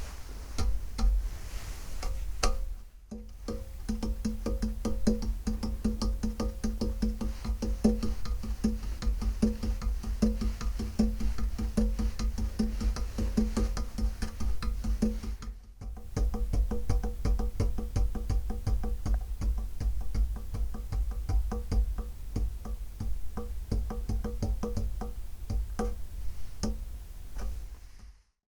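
Music: rapid clicking percussion over a deep, steady bass and a held low tone, breaking off briefly about 3 seconds in and again about 16 seconds in.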